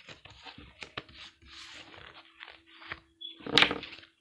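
Tarot cards being gathered off a table and shuffled by hand: a run of papery rustles, scrapes and clicks, with a louder burst about three and a half seconds in.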